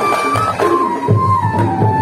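Hajir marawis ensemble playing: hajir and marawis hand drums beat a steady rhythm under a melody of held notes that step up and down.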